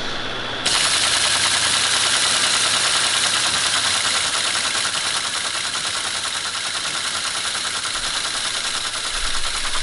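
Teletype ASR 33 starting up its paper tape reader less than a second in, then running on with a rapid, even mechanical clatter as it steps and reads the punched tape. The reading keeps going without dropping out, now that the reader's sticking contact has been bent.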